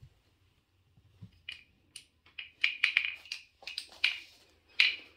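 A quick string of short, sharp clicking and smacking sounds, about a dozen over three seconds, starting about a second and a half in.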